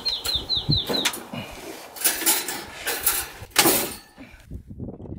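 Clicks and clacks of metal parts on a lift-type Paseco kerosene heater as its wire guard and body are raised and latched, the loudest clack about three and a half seconds in. A bird chirps quickly several times at the start.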